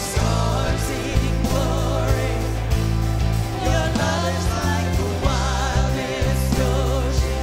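Live worship band playing a contemporary Christian song: singing over drums, electric guitar, bass and keyboard.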